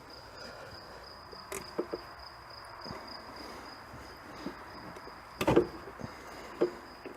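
Scattered clicks and knocks of hand tools and parts being handled while fitting an ignition coil on a truck engine, the loudest about five and a half seconds in. A steady high-pitched whine runs under them.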